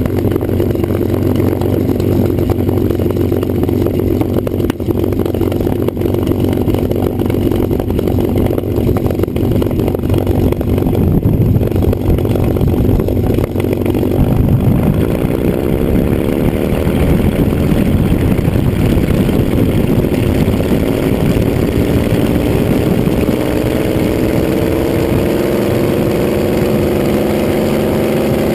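P-51D Mustang's Packard V-1650 Merlin V12 engine running with the propeller turning, heard from under the fuselage. The engine holds a steady note, then about halfway through it rises gradually in pitch as power comes up.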